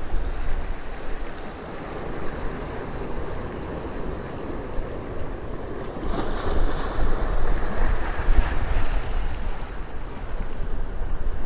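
Heavy surf breaking and washing on the shore, with wind buffeting the microphone; a wave surges in with a louder hiss about six seconds in.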